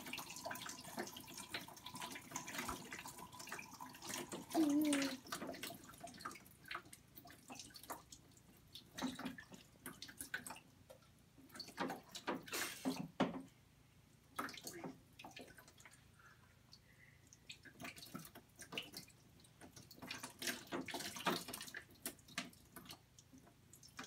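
Water poured from a plastic cup trickling, dripping and splashing down the plastic chutes and funnels of a Step2 Waterfall Discovery Wall toy into its basin, in irregular bursts. A brief voice sounds about four and a half seconds in.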